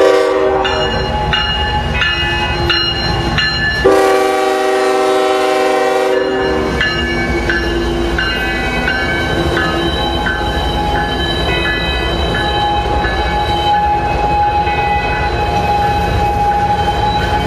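Union Pacific GE Evolution-series diesel locomotives passing close by. The lead unit sounds its air horn in a short blast at the start and a longer blast about four seconds in, while its bell rings steadily through the first half. Under it all run the diesel engines and the rolling wheels.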